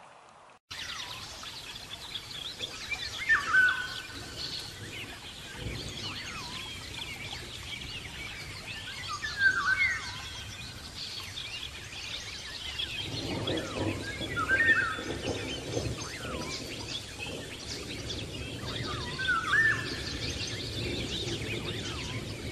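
Woodland birds chirping, with one louder call repeating about every five seconds. From about halfway in, a low rustling starts: an armadillo rooting through dry leaf litter.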